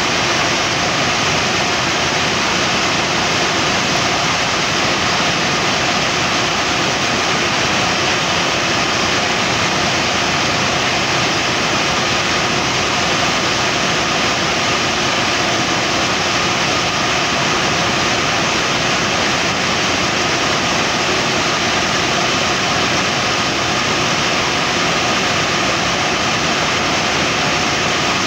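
Borehole drilling rig boring with compressed air: the compressor and engine run loud and steady, mixed with the rush of air blowing dust out of the hole.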